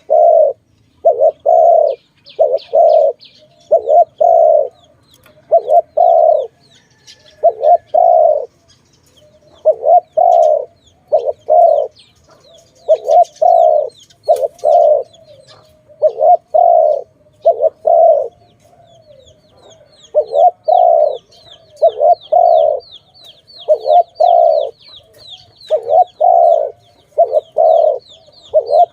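A dove cooing over and over in short low notes, grouped in twos and threes, about one group every one to two seconds. A smaller bird chirps faintly and rapidly in the background, mostly in the second half.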